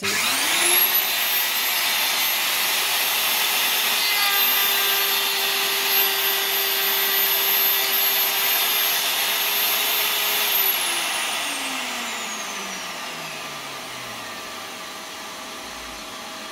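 Lumberjack PR14 router spinning up with a rising whine and running steadily through a light climb cut along the board's edge, then switched off about ten seconds in and winding down with a falling whine. A dust extractor, switched on automatically with the router, runs steadily underneath and keeps running after the router slows.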